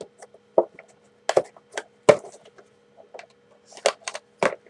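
HeroClix booster pack and the plastic-wrapped figures inside being handled: a string of short, sharp crinkles and crackles.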